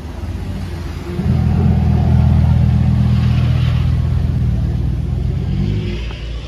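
Lamborghini Huracán's V10 engine pulling away at low speed. It swells about a second in to a steady, deep, low-pitched drone, then fades near the end.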